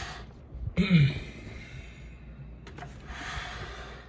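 A person's short voiced sigh about a second in, falling in pitch and trailing into breath. Then a couple of clicks and another breathy exhale near the end.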